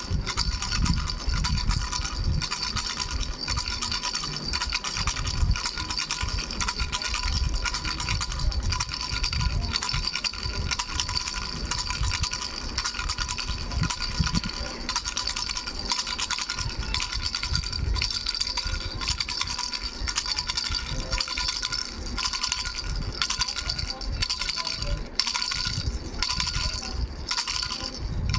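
A baby's three-bell rattle shaken continuously: a dense, fast rattling with the bells ringing steadily underneath.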